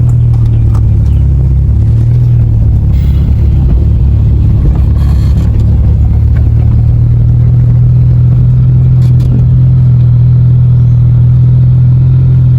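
Car driving along a dirt road: a steady low engine and road rumble, with a few light clatters.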